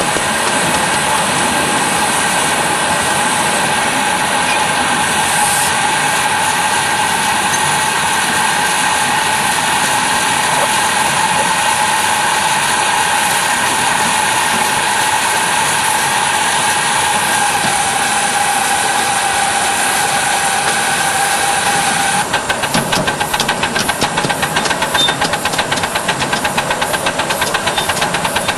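Miniature live steam locomotive running, a steady hiss of steam with a held whining tone under it. About 22 seconds in the hiss gives way to rapid, even exhaust chuffs as the engine works steam.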